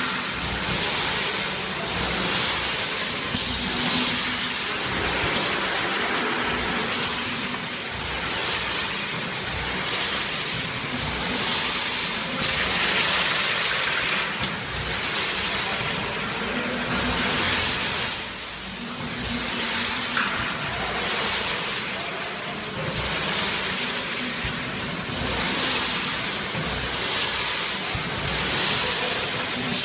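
Steady hissing machinery noise of a plastic strapping-band production line, with a few sharp clicks.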